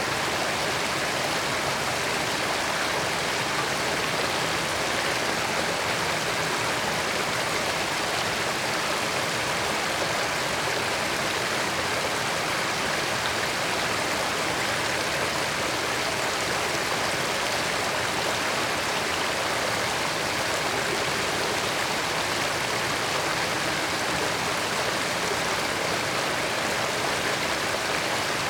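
Creek water flowing and splashing over rocks, a steady rushing that does not change.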